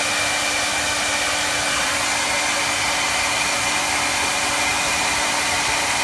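Handheld hair dryer running on high: a steady rush of air with a constant high whine and a low hum, used as a heat gun to shrink heat-shrink tubing over crimped battery cable connectors.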